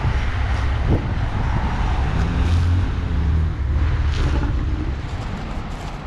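Street traffic noise with a motor vehicle's engine. Its low hum is loudest from about two to three and a half seconds in, over a steady rumble and hiss of traffic.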